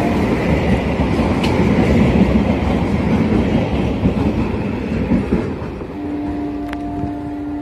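Electric multiple-unit local train running through the station at speed without stopping: a loud rumble with wheels clattering over the rail joints, which eases after about five seconds as the train passes. A steady two-note tone sounds for about the last two seconds.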